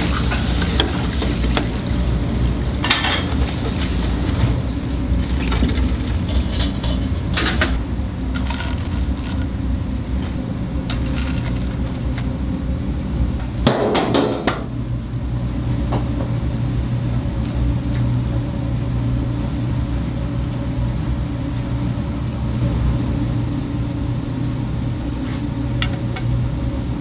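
Commercial kitchen sounds: a steady low hum with scattered clinks and clatter of metal cookware and utensils, the loudest clatter about halfway through.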